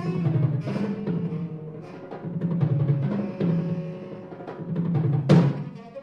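Live chamber music for tenor saxophone and percussion: low drums rolling and pulsing under held tones, with a loud struck accent about five seconds in.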